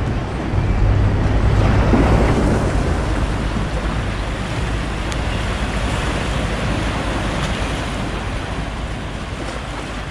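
Harbour ambience dominated by wind buffeting the microphone, with a low rumble underneath. It swells about a second in and then slowly eases.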